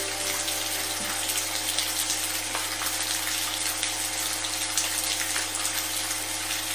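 Steady rain noise with low, sustained tones held underneath: a sound-therapy frequency drone layered over a rain recording.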